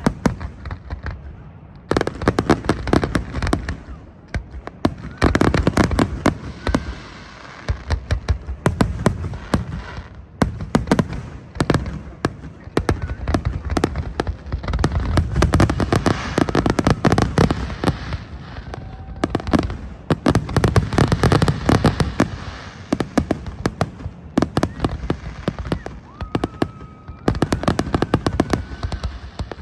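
Aerial firework shells bursting in a rapid, dense barrage of overlapping bangs and crackles, with brief lulls between volleys.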